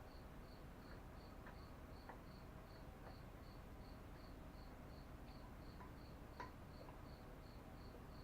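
Near silence with a cricket chirping steadily, about three to four chirps a second, and a few faint clicks.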